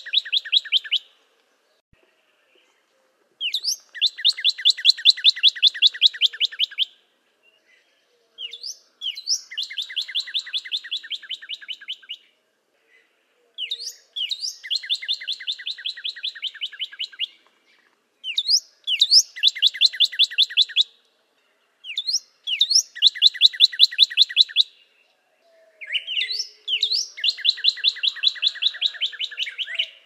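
Northern cardinal singing: six phrases, every four to five seconds, each opening with a few quick slurred notes and running into a fast trill of rapidly repeated notes.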